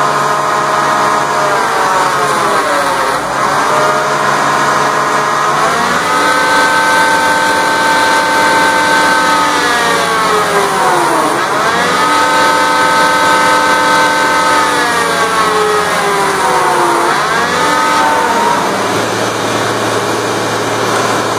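IH Hydro 186 hydrostatic tractor transmission running on a dyno test stand with its drive engine, making a steady pitched drone. The pitch sags and climbs back three times as the unit is worked during the test.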